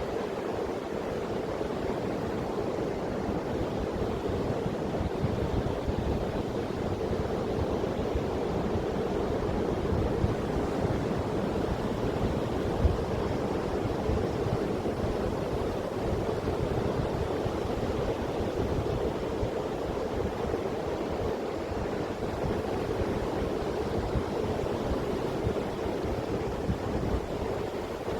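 Sea surf washing steadily on the shore, with wind buffeting the microphone in uneven low rumbles.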